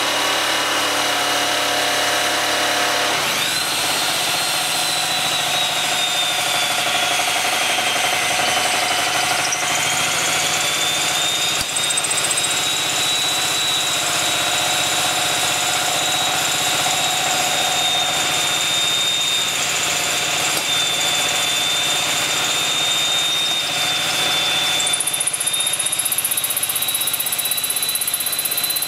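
Small portable generator engine running steadily under load, with the high whine of a handheld electric power tool running off it; the whine starts about three seconds in, sags and recovers in pitch, and shifts again near the end.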